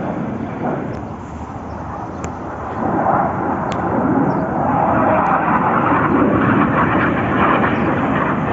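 Jet engines of aerobatic display jets flying past: a steady rushing noise that grows louder about three seconds in and stays loud.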